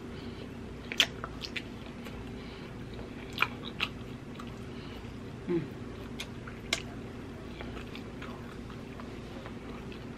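Close-miked mouth sounds of a person chewing rotisserie chicken, with sharp wet smacks and clicks every second or two.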